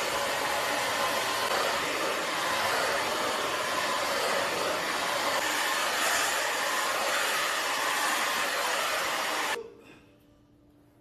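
Wavytalk 1875 W ionic hair dryer blowing steadily, then switched off near the end, its rush of air cutting off quickly.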